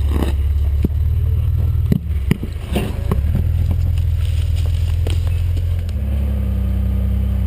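Off-road vehicle engine idling steadily at close range, with a few sharp knocks and clicks between two and three seconds in; the engine note changes about six seconds in and stays steady.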